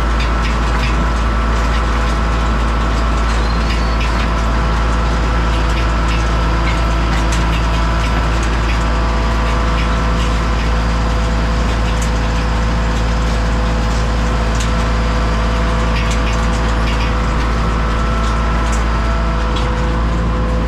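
Pumpkin harvesting rig running: a steady tractor-engine drone with scattered knocks and clatter as pumpkins roll and bump along the roller conveyor.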